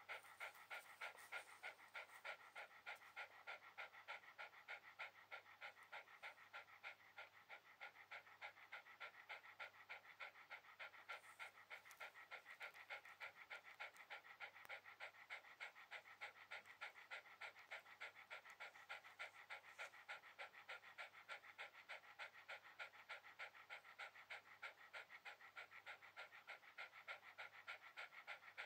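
Shiba Inu panting softly and steadily through its open mouth, quick even breaths about three a second.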